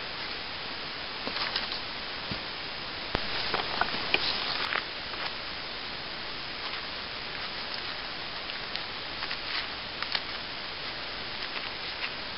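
Steady hiss with scattered rustles, clicks and knocks from someone moving about and handling gear, busiest about three to five seconds in; no regular saw strokes.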